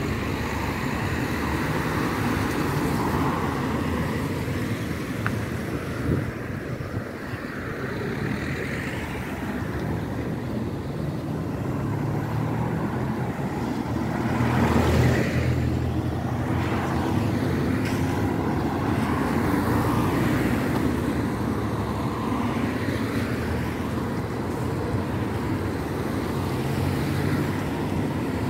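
Busy road traffic: cars, vans and a light truck driving past close by, a steady run of engine and tyre noise, with one vehicle passing loudest about halfway through.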